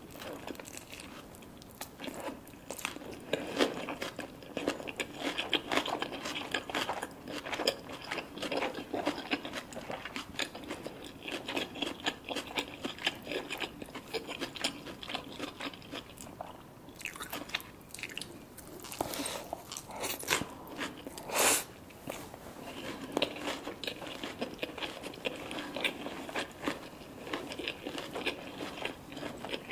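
Close-miked eating: crunchy food being bitten and chewed in a rapid, irregular run of crunches, with one louder, sharper sound a little over two-thirds of the way in.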